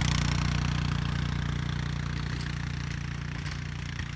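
Honda Foreman 450 ATV's single-cylinder engine running steadily as the four-wheeler plows snow, growing fainter as it drives away.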